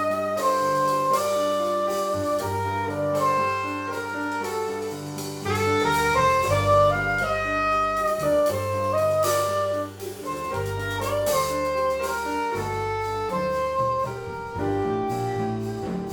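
Live jazz quartet playing: a saxophone carries the melody in held notes over piano and bass, with drums.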